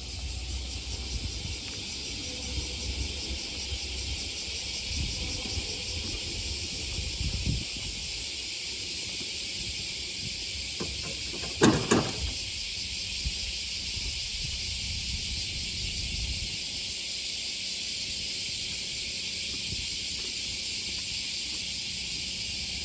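Low rumble of a passing train dying away over a steady high hiss, with a brief loud burst about twelve seconds in.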